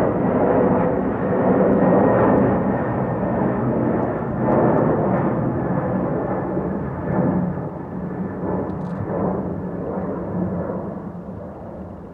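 Delta Boeing 767-300ER's twin jet engines rumbling as the airliner moves away, the noise slowly fading.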